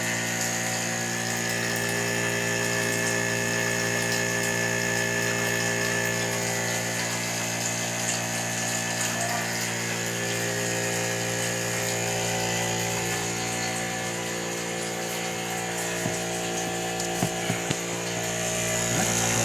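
Battery-powered water pump of a portable water heater running with a steady hum, drawing water in to fill the unit's reservoir. A few light clicks near the end.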